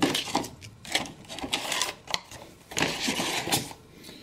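Clear plastic packaging tray crackling and clicking as it is handled and put aside, in a run of irregular crinkles and taps.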